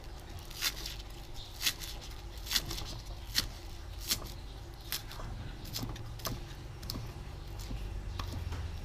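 Kitchen knife chopping fresh coriander and spring onion on a round wooden chopping block: sharp knocks of the blade on the wood about once a second, over a low steady hum.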